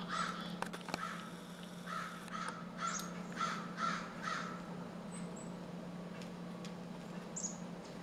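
A crow cawing: a run of about eight caws, roughly two a second, stopping about four and a half seconds in. It is the large predator whose calls drive the chickadees from the feeder.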